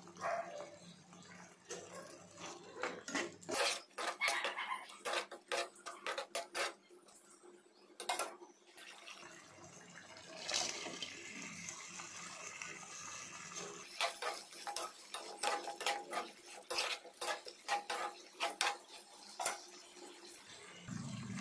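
A spoon clattering and scraping in a nonstick frying pan as vegetables in sauce are stirred, in two runs of quick clicks and knocks. Between the runs, about ten seconds in, fried baby corn is tipped in from a plate with a short hiss.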